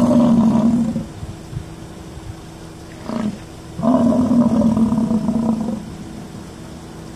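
American bison bull bellowing: a deep, drawn-out bellow at the start lasting about a second, a short grunt just after three seconds, then a longer bellow of about two seconds.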